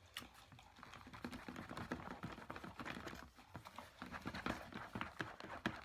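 Slime mixture being stirred with a stick in a cup: a soft, quick, irregular clicking and smacking.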